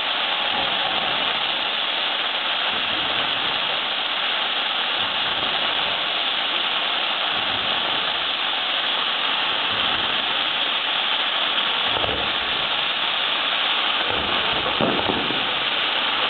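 Fireworks display: a steady, dense crackling hiss from glittering firework effects, with a few low thuds of bursts near the end.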